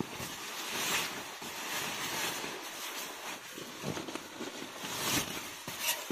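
Fabric rustling in a tent, in irregular swishes.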